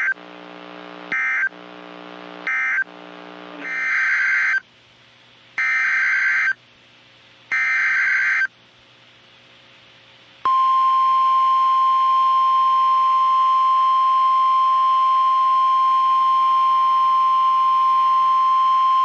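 Emergency Alert System SAME data bursts on NOAA Weather Radio. First come three short warbling bursts marking the end of one warning, then three longer bursts of header data for the next. About ten seconds in, the 1050 Hz weather radio alert tone starts and holds as one steady, loud tone.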